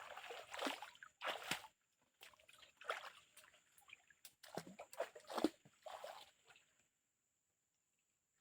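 Water splashing and sloshing in about five short bursts over roughly seven seconds, then it stops.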